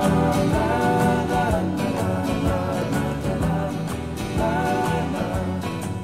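Background music with a steady beat and a held melody line.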